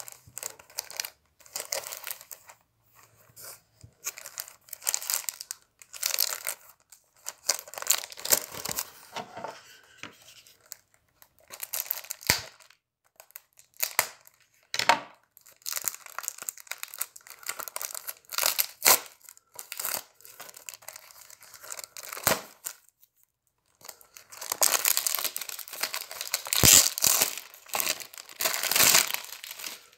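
Clear plastic shrink wrap being torn and crinkled off a cardboard card-game box, in irregular bursts of rustling with sharp crackles, loudest near the end.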